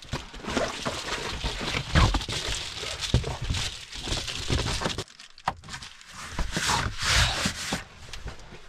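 Window covers being handled and fitted into a van's windows: rustling and rubbing with scattered knocks, the strongest about two and three seconds in.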